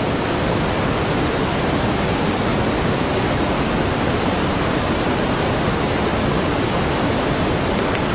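Fast-flowing muddy floodwater rushing past, a steady, even noise.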